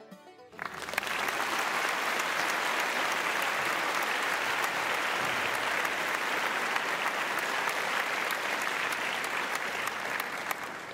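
Applause from many hands. It starts about half a second in, holds steady, and begins to trail off near the end.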